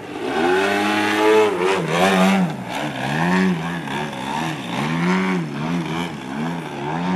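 Engine and propeller of a large-scale Pilot-RC Laser 103" aerobatic model airplane, throttled up and down over and over during 3D aerobatics. The pitch rises and falls about once a second, and the swings come quicker near the end.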